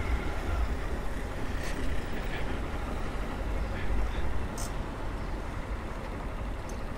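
Honda Fan 160's single-cylinder four-stroke engine running at low road speed, heard as a steady low rumble through the helmet microphone along with wind noise.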